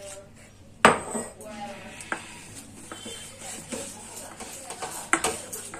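Wire whisk clinking and scraping against a steel mixing bowl as besan batter is stirred. There is a sharp clank about a second in and a few lighter knocks later.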